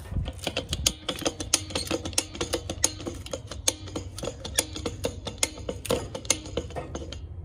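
Ratchet-bar fence stretcher clicking rapidly and irregularly as its handle is worked, its pawl stepping along the toothed bar while it pulls a strand of barbed wire tight.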